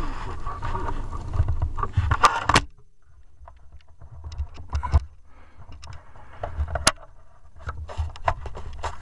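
Handling noise as a scoped air rifle is moved and brought back onto the target: uneven low bumps and rubbing with scattered sharp clicks, quieter for a moment a few seconds in.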